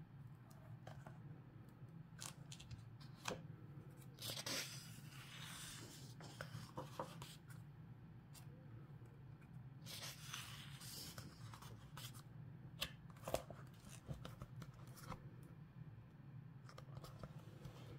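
Paper pages of a hardcover book being turned by hand: two longer rustling swishes, about four seconds in and again about ten seconds in, with small taps and paper rustles between. A faint steady hum lies under it.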